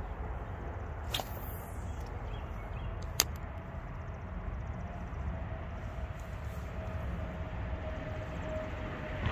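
Steady low outdoor rumble, with a brief swish about a second in and a single sharp click about three seconds in. A faint steady hum joins it in the second half.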